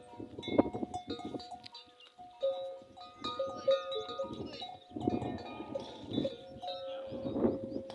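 Many camel neck bells clanking and ringing together as the camels move, several bell pitches overlapping and struck again and again. Bursts of low noise come in between, the loudest about half a second in.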